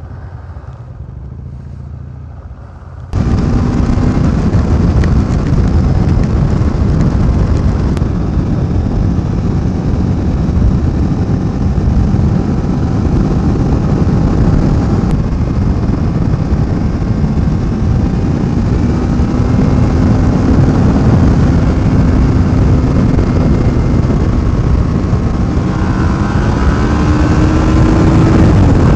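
Kawasaki Ninja 650R parallel-twin motorcycle, first running slowly at low revs. About three seconds in it turns abruptly much louder: the bike cruising at road speed with heavy wind rush over the helmet microphone, and the engine note drifting and rising near the end.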